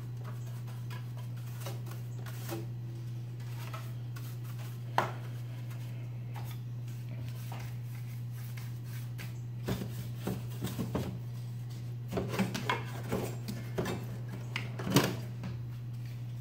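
Light taps, clicks and scrapes of a paintbrush knocking dust off the metal chassis, cables and circuit boards inside an opened CRT monitor. They come in scattered clusters, mostly in the second half, with the loudest knock near the end, over a steady low hum.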